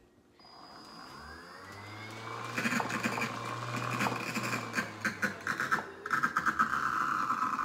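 Automatic dog ball launcher's motor spinning up with a rising whine and running on its highest setting, with rapid irregular knocking over it as an egg loaded in the launcher fails to be thrown.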